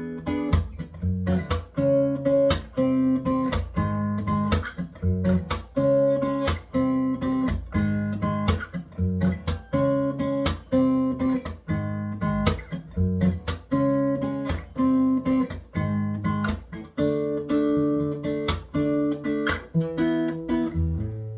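Taylor 714ce X-braced acoustic guitar played in a bossa nova rhythm: plucked bass notes under short, syncopated chord plucks, each with a crisp string attack and ringing tones.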